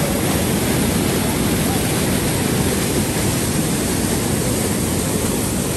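Steady loud rushing of wind buffeting the microphone while riding an ATV, with the machine's engine and tyres running underneath.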